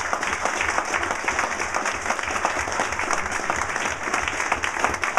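Audience applauding: many hands clapping densely at a steady level.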